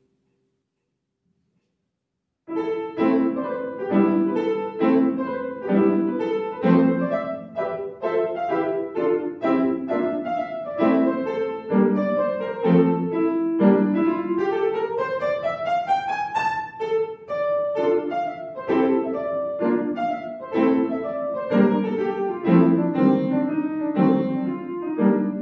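Upright piano: after about two seconds of silence, a piece begins with repeated chords and melody notes, with a fast rising run up the keyboard about halfway through.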